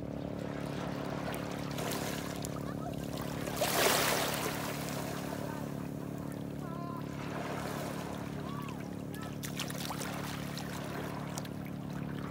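Shallow seawater splashing and sloshing as a small child and a dog wade at the water's edge, with one loud splash about four seconds in. A steady low hum runs underneath.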